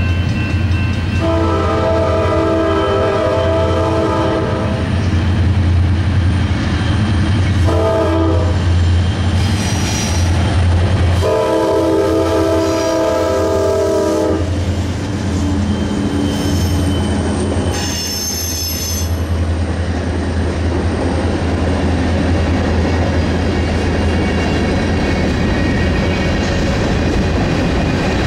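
Norfolk Southern diesel locomotives approaching and passing, sounding the air horn in three blasts (long, short, long) over a steady low engine rumble. Then a string of covered grain hopper cars rolls past.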